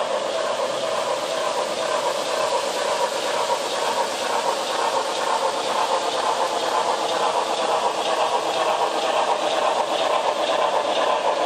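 An HO scale Southern Pacific GS-4 model steam locomotive's DCC sound decoder plays simulated steam locomotive running sounds through the model's small speaker, a steady hiss that grows slowly louder as the locomotive approaches.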